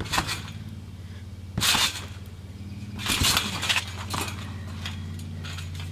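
Trampoline bouncing: a rattling, creaking burst from the mat and springs with each jump, four in all, the longest about three seconds in, over a steady low hum.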